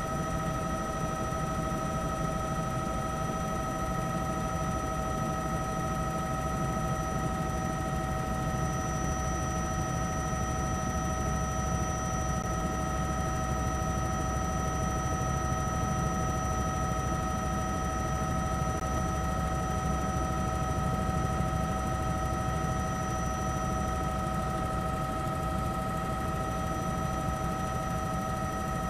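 Helicopter noise heard from aboard: a steady, dense rotor rumble with several high whining engine tones held at one pitch.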